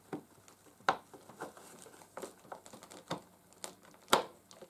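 Scattered light clicks and knocks from plastic vacuum cleaner parts and tools being handled and fitted together, the loudest knock about four seconds in.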